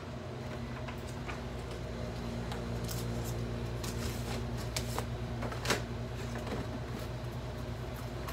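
Paper being handled at a desk, with scattered rustles and small sharp clicks, the sharpest a little before six seconds in, over a steady low mechanical hum like an office fan or air conditioner.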